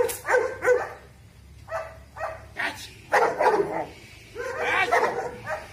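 Dog barking in short clusters of barks with pauses between: a leashed dog barking at an agitator during protection training.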